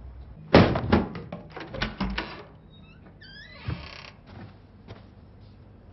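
A loud thump against a wooden door, followed by a quick run of knocks and rattles. Then comes a short squeaky creak with a scrape.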